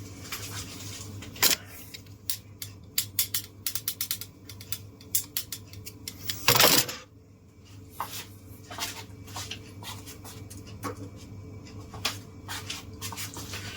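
Keys of a Keychron K1SE low-profile mechanical keyboard with clicky blue switches being pressed: many crisp clicks at an uneven pace, busiest in the first half. A louder, rougher burst of noise lasting about half a second comes a little past halfway.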